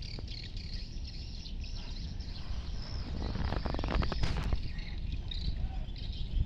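Outdoor ambience: a steady low wind rumble on the microphone with small birds chirping now and then, and a burst of rustling about three and a half seconds in.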